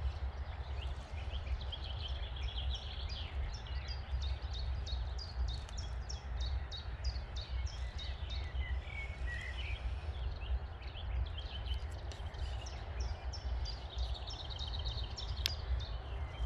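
Outdoor ambience dominated by wind rumbling on the microphone, with a steady rushing hiss underneath. Through most of it runs a quick, even high ticking, about two or three ticks a second, pausing briefly around the middle, with a few faint bird notes.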